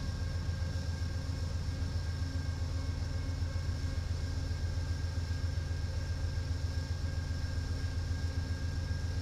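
Amtrak Siemens Charger (ALC-42) diesel-electric locomotives idling while the train stands at the station: a steady, evenly pulsing low diesel rumble with a faint high whine above it.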